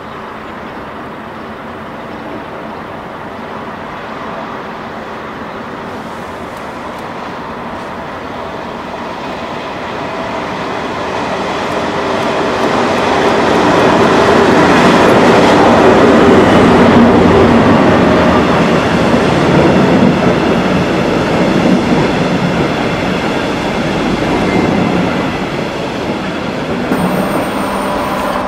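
DB class 218 diesel-hydraulic locomotive hauling a regional passenger train through a station: its engine grows steadily louder as it approaches and is loudest as it passes close by, then the coaches roll past. Near the end a different, steadier engine tone takes over.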